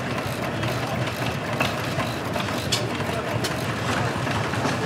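Old stationary engine running steadily, with a few short sharp clicks.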